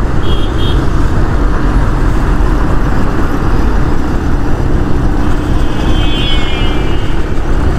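Motorcycle running at about 50 on a busy highway: a steady, loud rush of wind on the camera's microphone with engine and road noise beneath. Faint high tones sound briefly near the start and again for a couple of seconds past the middle.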